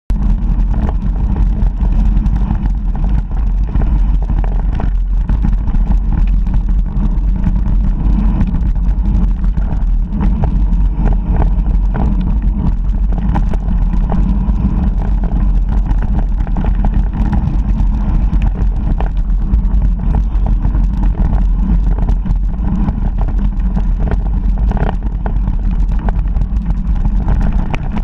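Mountain bike riding fast down a dirt trail: a steady rumble of wind buffeting the microphone and tyres on the ground, with frequent rattles and knocks from the bike over bumps.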